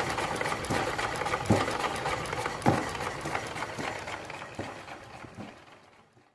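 Homemade single-cylinder spark-ignition mini engine, built around a jeep brake wheel cylinder and driving a large flywheel, running: a steady mechanical clatter with a heavier firing thump about once a second, fading away near the end.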